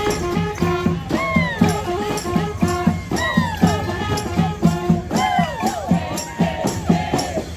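Street band playing: horns swooping up and falling off their notes over a steady drum beat.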